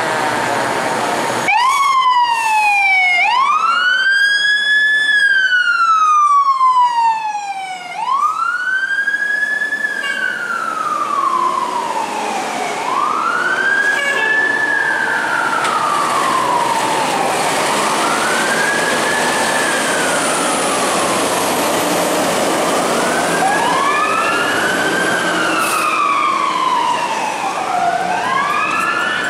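Fire truck sirens wailing, the pitch rising quickly and falling more slowly in cycles about every three seconds; the siren starts suddenly about a second and a half in. Near the end a second siren overlaps out of step with the first.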